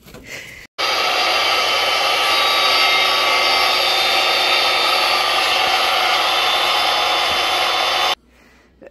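Handheld corded circular saw running steadily as it cuts a piece of wood, a loud even whine. It starts abruptly just under a second in and cuts off sharply about a second before the end.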